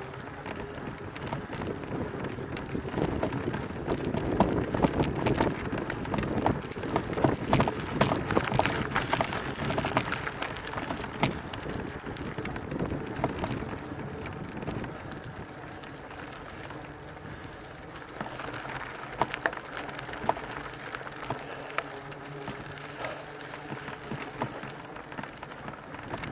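Mountain bike riding over rough ground: tyres crunching and rattling over stones with many small clicks and knocks, and wind on the microphone. About halfway through it eases, and a steady low hum comes in under the tyre noise.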